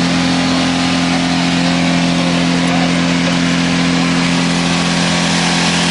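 Ford Thunderbird engine held at full throttle by a brick on the pedal, running flat out at a steady, unchanging pitch. It is being deliberately run until it fails and is already smoking.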